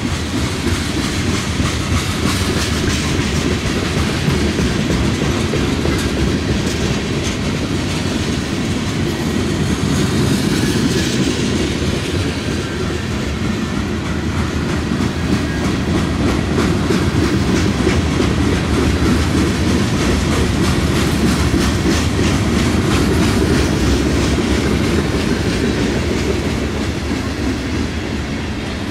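Manifest freight train's cars rolling past, a steady rumble with the wheels clicking over the rail joints.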